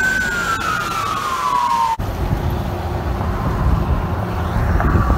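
Fire truck siren in a single wail that holds steady briefly, then falls in pitch. It cuts off abruptly about two seconds in, and a steady low rumble of wind noise follows.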